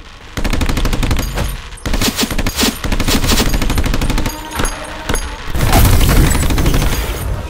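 Nerf Rival blaster firing in several rapid bursts, a fast rattle of shots with brief breaks between them.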